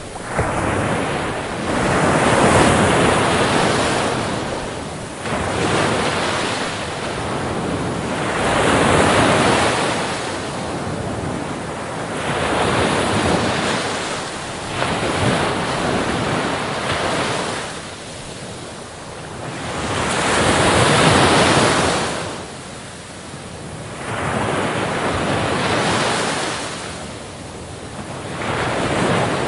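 Waves washing onto a shore, the rush swelling and fading in slow surges every few seconds.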